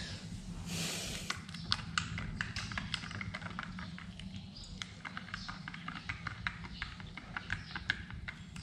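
Coffee being stirred in a glass mug, the stirrer tapping and clinking quickly and irregularly against the glass, over a steady low hum.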